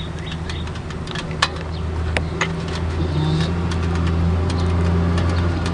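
A steady low hum from inside a Vespa Super 300 scooter that is switched off with the key out, with scattered sharp clicks over it; the owner wonders whether it could be the fuel pump.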